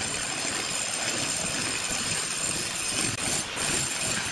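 Angle grinder with a diamond disc running steadily while grinding the surface of a concrete countertop, a high-pitched whine over dense grinding noise, briefly dipping about three seconds in.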